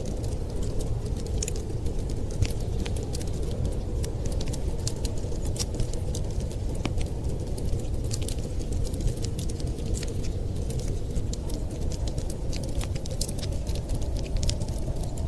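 Wood fire crackling: frequent, irregular sharp pops and snaps over a steady low rumble.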